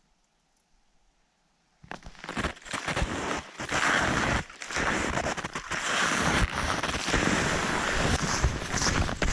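Near silence, then about two seconds in gusty wind starts buffeting the microphone and keeps up loud and uneven.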